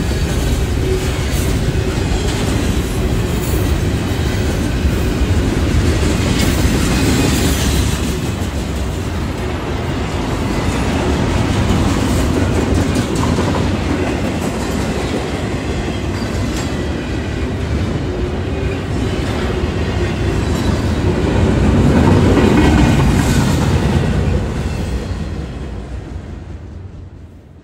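Double-stack intermodal freight cars rolling past close by: a steady rumble and clatter of steel wheels on the rails, fading out near the end.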